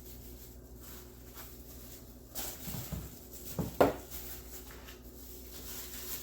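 Kitchen handling sounds over a faint steady hiss, with one sharp knock a little past the middle.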